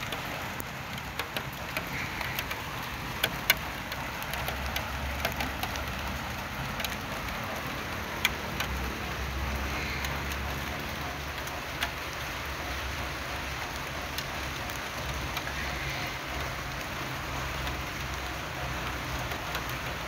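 Steady rain falling on the broad leaves of a loquat tree, with occasional sharp drips striking close by. A low rumble comes and goes underneath.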